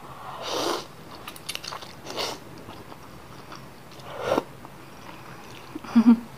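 Slurping spicy instant noodles (ramyun) off chopsticks and chewing them: three hissy slurps, about half a second, two seconds and four seconds in, with small wet mouth clicks between.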